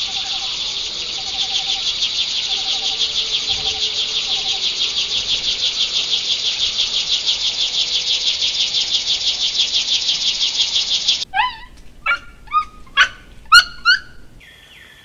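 Animal sounds: a high, fast-pulsing buzzing trill for about eleven seconds that cuts off suddenly, followed by about six short downward-sliding chirps, each louder than the last.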